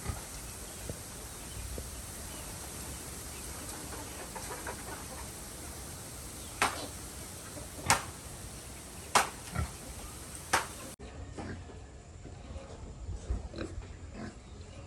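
Pigs grunting, with four short, sharp sounds between about six and eleven seconds in over a steady hiss; the sound changes abruptly at a cut about eleven seconds in.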